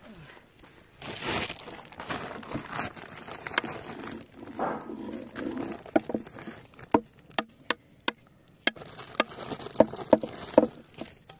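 Thin plastic bag being handled: rustling and crinkling, with a run of sharp crackles in the second half.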